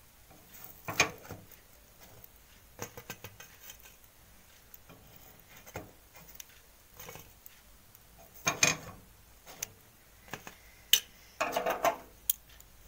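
Light clicks and scrapes of a utensil and fingers against a non-stick appe pan as steamed rice cakes are lifted out of its wells one by one, with a few louder clatters.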